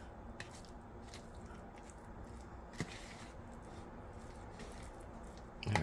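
Metal fork stirring a hot breakfast bowl of scrambled egg, potato and sausage in a plastic tray: faint soft squishing with a few light clicks of the fork against the bowl.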